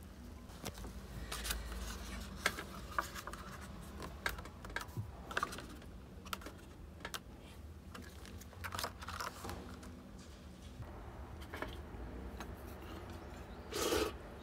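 Irregular light clicks and scratchy rustles of hands handling small objects, with a louder rustle near the end.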